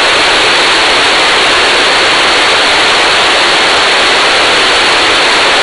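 Loud, steady hiss of an RTL-SDR receiver's narrowband FM demodulator with no carrier on the tuned 2-metre channel: the transmitting station has unkeyed, so the open squelch passes only noise. The hiss is strongest in the mid and upper range, with little bass.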